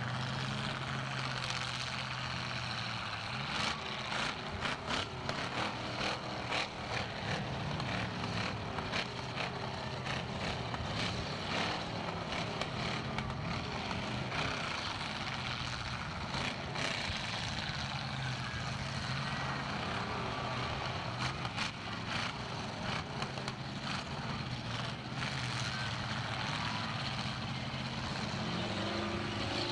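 Demolition derby cars' engines running and revving, with a run of sharp bangs and crunches from cars ramming one another, thickest in the first half and again a little past the middle.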